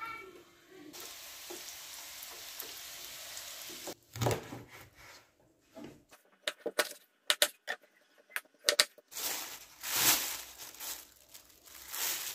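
Kitchen knife chopping a whole pollock into pieces on a wooden cutting board: a string of sharp knocks as the blade goes through the fish and strikes the board. Near the end a thin plastic bag rustles and crinkles as the fish pieces go into it.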